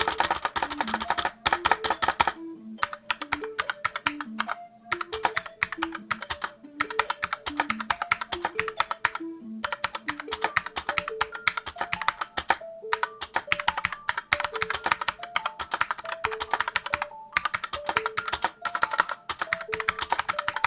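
Typing on a SteelSeries Apex M750 mechanical keyboard with linear QX2 switches: a rapid, steady clatter of keystrokes broken by a few short pauses, over soft background music.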